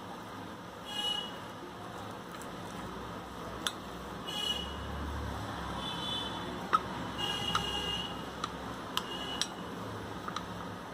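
A metal spoon spreading a grated paneer and cheese filling on buttered bread, tapping and scraping against the bread and plate with sharp clicks several times in the second half. A few short high tones sound in the background.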